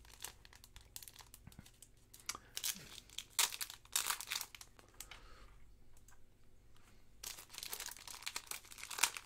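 Thin plastic card sleeve crinkling as a baseball card is handled and slid out of it: irregular crackles, busiest about a third of the way in and again near the end.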